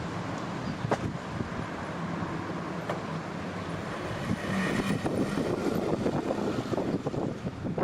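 Air suspension on a bagged Chevrolet Corvair being aired out: a steady rush of air venting from the bags as the car lowers, over a low vehicle rumble, with a few small clicks.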